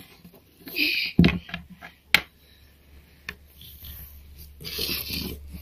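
Plastic Littlest Pet Shop figurines being handled and moved on a tabletop: a few sharp knocks as they are set down or tapped on the table, and two short rubbing scrapes, the second near the end.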